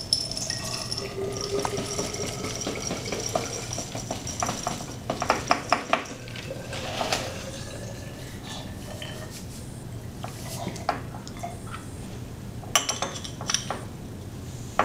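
Dry cereal poured from a box rattling into a glass jar, with scattered clinks and knocks of glass on a lab bench as the jar and a salt canister are handled.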